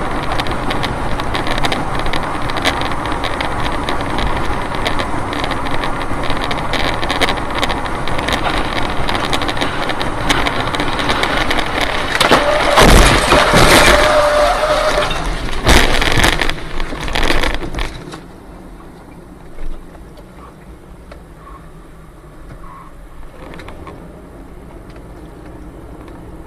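Steady vehicle and road noise, then a crash with loud impacts at about 13 and 16 seconds in; a steady tone sounds for a couple of seconds during the first impact. After about 18 seconds the noise drops to a low hum.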